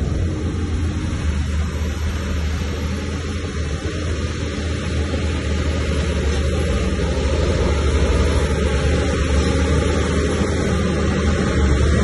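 Bulldozer's diesel engine running, a steady noisy drone with a strong low hum, growing a little louder toward the end.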